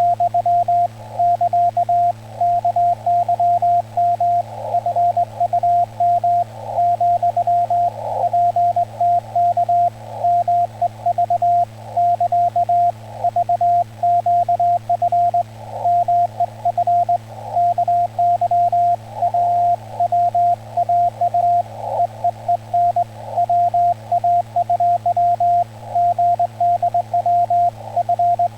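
Morse code (CW) from a ham radio transceiver: a single tone of about 700 Hz keyed on and off in dots and dashes without pause, over a narrow band of receiver hiss and a faint low hum. The keying spells out Korean (Hangul) Morse code.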